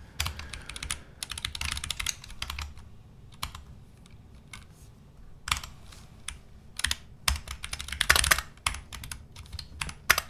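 Typing on a computer keyboard: bursts of quick key clicks, with a pause of a second or two near the middle.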